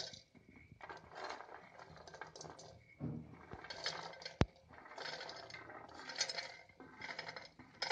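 Wild jackfruit (anjili) seeds swept by hand off a steel plate and tumbling into an earthenware pot of hot sand: faint, irregular scraping and rattling, with one sharp click about four and a half seconds in.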